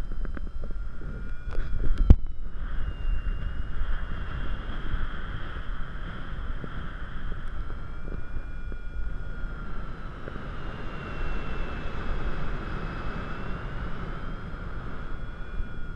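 Wind buffeting a GoPro Hero 3's microphone in paragliding flight, a steady low rumble, with a faint whistling tone that wavers slowly in pitch. A sharp knock about two seconds in.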